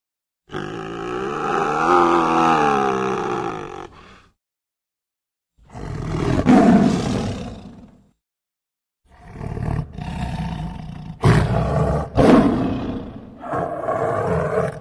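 Tiger roaring and growling in three separate calls split by short silences. The first call is a long pitched roar that rises and falls. The last and longest call has several loud peaks.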